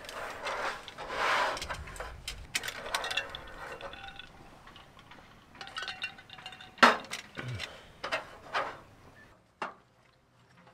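Stainless steel camp mugs and tableware clinking and knocking on a camp table, a string of separate sharp clinks with the loudest about seven seconds in.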